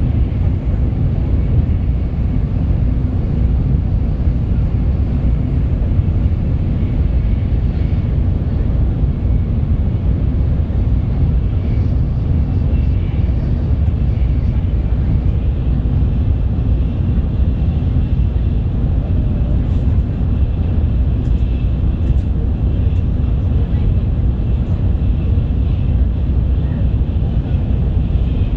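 Shinkansen bullet train running at high speed: a steady, loud low rumble of wheels and airflow that does not change.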